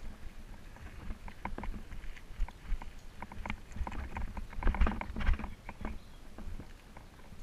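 Mountain bike rattling and clicking over rough, bumpy ground, with irregular sharp ticks and low rumbles. The rattling is heaviest about halfway through.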